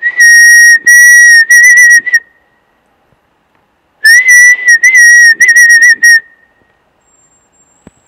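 A man whistling loudly to call a bird: two spells of about two seconds each of a high, steady whistle that wavers a little toward the end of each.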